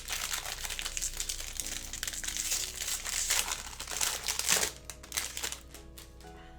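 Foil card-pack wrapper crinkling and rustling while cards are handled, stopping about four and a half seconds in. Quiet background music plays underneath.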